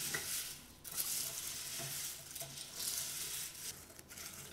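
Cornflakes being stirred with a spoon into melted chocolate in a glass bowl, in uneven strokes with brief pauses.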